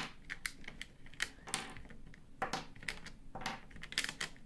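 Watercolour half pans being taken out of a metal travel tin and set down on a wooden table: a run of irregular small clicks and taps.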